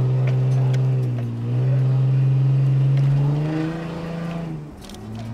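Engine-like drone for toy vehicles driving into the toy bus, held on one low pitch with a short dip about a second and a half in, a small step up in pitch later, and a drop-off near the end.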